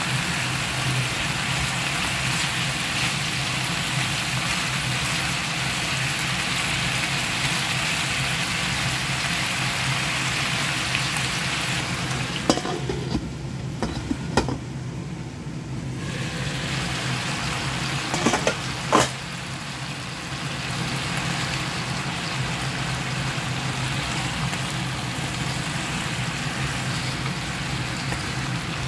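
Chicken and onion sizzling in a frying pan as they are stirred with a spatula. About twelve seconds in, a metal lid clanks onto the pan and the sizzle goes muffled for a few seconds. A couple more clanks come as the lid is handled, and then the full sizzle returns. A steady low hum runs underneath.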